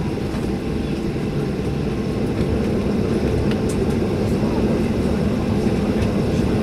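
Cabin noise of a Boeing 737-800 taxiing after landing, heard from inside the rear cabin: its CFM56-7B turbofans run at low thrust as a steady low rumble, which grows a little louder about two and a half seconds in.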